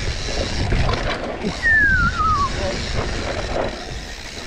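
Mountain bike riding down a technical trail: steady rattling and rumbling ride noise. About one and a half seconds in, a brief thin squeal wavers and falls in pitch; it is the loudest sound.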